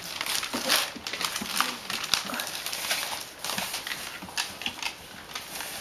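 Newspaper rustling and crinkling in short bursts as a baby grabs, lifts and crumples the sheets, with the clicking of a dog's claws on the hardwood floor.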